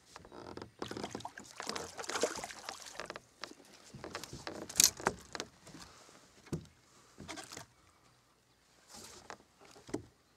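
Smallmouth bass being landed at the side of a small boat: irregular splashing and rustling for the first few seconds, then scattered knocks against the boat, one sharp knock the loudest, about five seconds in.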